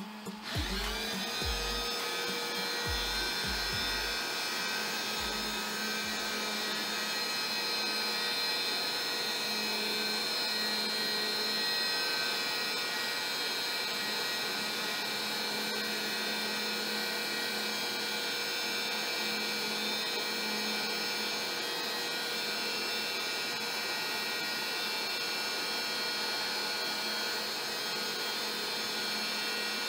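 A motor spins up about a second in as the shop vacuum on the CNC's dust shoe switches on. It then runs steadily together with the CNC's trim router, which is cutting MDF with a 1/8" bit, giving a steady mixed whine.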